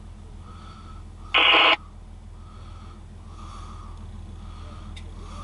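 Diesel locomotive at the head of an empty coal train approaching with a low, steady rumble. About a second and a half in, a short, loud horn blast sounds once.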